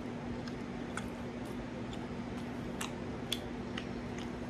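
A person chewing a mouthful of meatball, with scattered small wet mouth clicks and smacks, one a little louder near the end, over a steady low hum.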